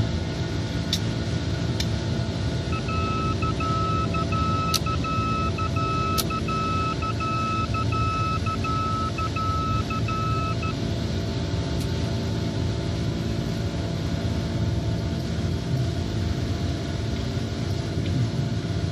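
Steady cockpit noise of an An-124 Ruslan in flight shortly after takeoff: the four turbofan engines and airflow give a constant low rumble and hiss. From about three seconds in until about eleven seconds, an electronic beeping tone sounds in broken pulses, with a few faint clicks scattered through.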